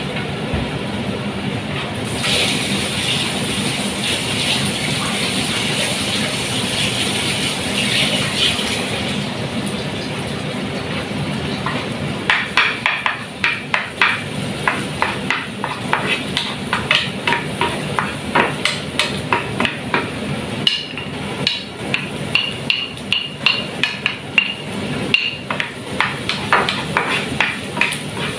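Chopped onions frying in a pan with a steady sizzle, which hisses louder for several seconds near the start. From about halfway, a wooden spatula stirs them, knocking and scraping against the non-stick pan a few times a second.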